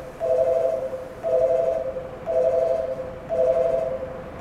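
Station platform train-approach warning: a two-note electronic tone pulsing about once a second, sounding as a train approaches to pass through without stopping.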